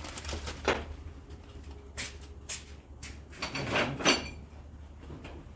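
A few sharp knocks and clatters, the loudest about four seconds in, over a steady low hum.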